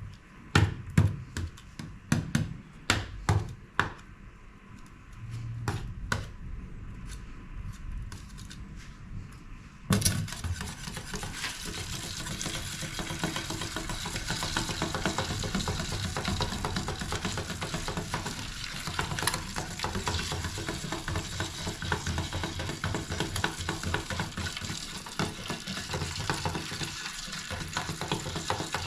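A few sharp knocks and clatters of kitchen utensils and cookware. About ten seconds in, food hits a hot pan and starts sizzling, then keeps frying steadily.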